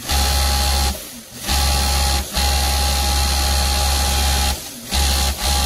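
Industrial overlock machine (serger) stitching along a skirt's hem edge, running in several bursts of one to two seconds with brief pauses as the fabric is turned. Each run starts and stops abruptly, a steady hum with a constant high whine over it.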